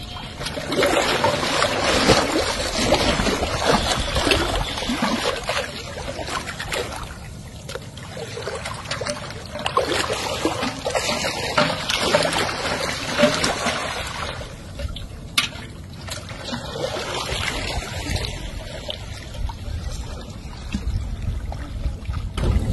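Water trickling and splashing, rising and falling in loudness.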